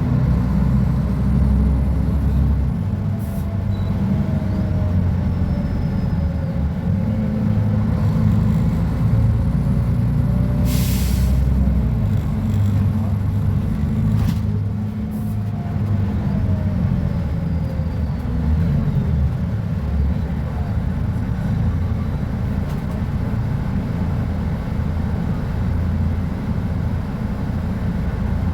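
Mercedes-Benz O500UA articulated bus's diesel engine and Voith automatic gearbox running under way, a deep steady rumble with a faint whine gliding up and down in pitch. About eleven seconds in, a sharp hiss of compressed air from the air brakes lasts about a second.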